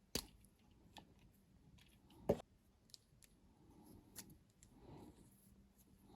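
Small clicks and taps from handling a plastic cosmetic pencil and its packaging, with two sharper clicks, one just after the start and one a little after two seconds in.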